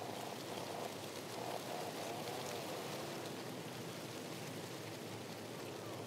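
Steady outdoor ambience of wind and distant sea surf, an even hiss with no distinct events.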